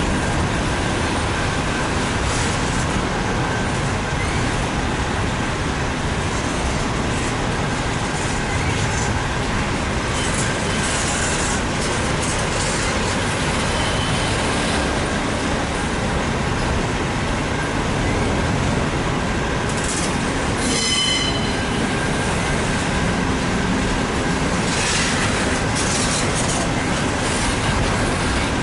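Double-stack intermodal train's container well cars rolling past, a steady rumble of steel wheels on rail with a faint high squeal running under it. A short, shrill squeal about twenty-one seconds in.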